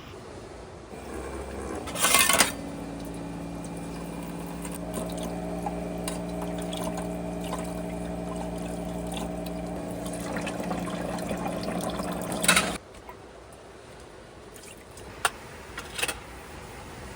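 A small electric water pump hums steadily while water pours, for about ten seconds. It starts and stops abruptly, with a louder splash or clatter at each end.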